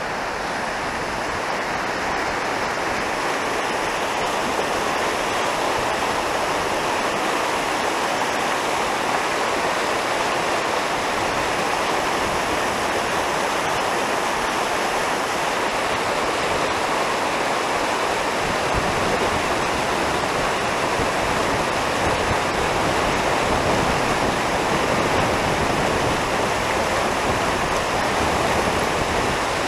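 Fast mountain river rushing through whitewater rapids over rocks: a steady, loud wash of water noise, a little heavier in the low end about two-thirds of the way in.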